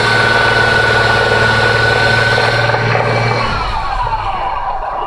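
2004 Jeep Liberty engine held at raised revs with the gas pedal pressed, then dropping back toward idle about three and a half seconds in. Under load it makes the clacking/knocking noise the owner hears whenever the gas is pressed.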